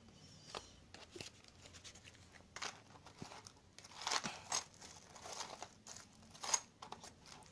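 Faint crinkling and rustling of handled packaging, in a run of short irregular rustles with a few small clicks, busiest around the middle.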